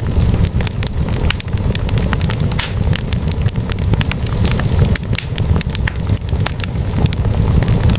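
Wood fire burning in a fireplace: logs crackling with many sharp pops, several a second, over a steady low rumble of the flames.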